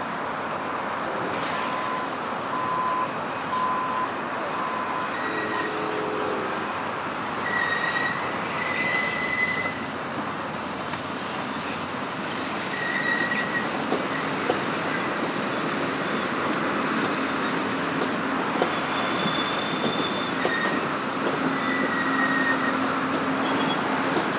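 Amtrak Silver Star passenger cars rolling slowly past while being backed in (shoved), with a steady rumble of wheels on rail. Short high wheel squeals come and go, and a few sharp clicks sound as wheels pass rail joints.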